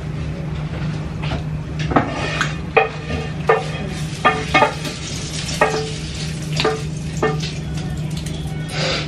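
A spoon scooping filling out of a glass bowl, clinking against the bowl about eight times at uneven intervals, over a steady low hum.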